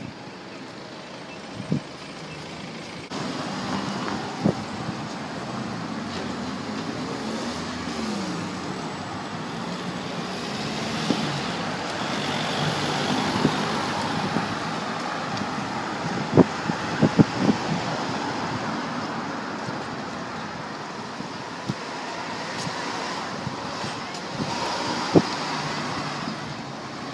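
Steady city street traffic noise, cars running and tyres on the road, heard while moving along a bike lane. It gets louder about three seconds in, with a few sharp knocks scattered through it.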